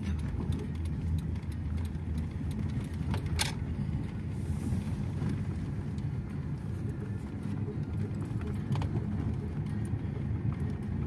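Steady low engine and road rumble inside a moving car's cabin, with a sharp click about three and a half seconds in and a few fainter clicks.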